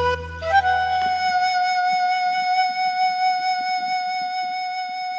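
Instrumental backing music ending: the low chord dies away about a second in, leaving one long held high note.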